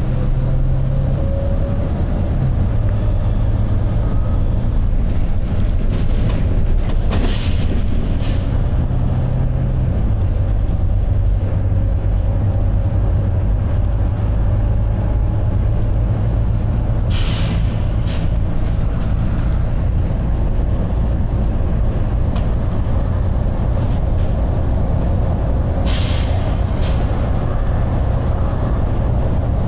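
Volvo B9TL double-decker bus heard from on board, its 9.4-litre six-cylinder diesel working hard under way with the engine note shifting several times. Short hisses of compressed air from the bus's air system come in three pairs, about nine seconds apart.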